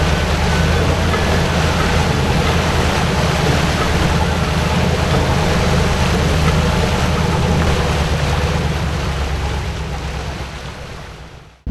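Engines of a fleet of small motorboats running steadily on a river, mixed with the rush of water from their wakes; the sound fades out near the end.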